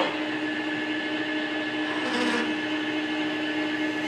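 Metal lathe running at speed, just started, a steady hum with a whine, while a 35/64 in drill bit is fed into bronze hex stock to drill a pilot hole; a brief hiss comes about two seconds in.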